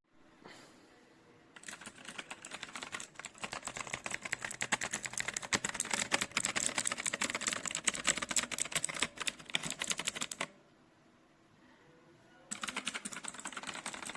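Fast typing on a KOORUI MK082 mechanical keyboard: a dense run of rapid key clicks lasting about nine seconds, a pause of about two seconds, then a shorter burst near the end.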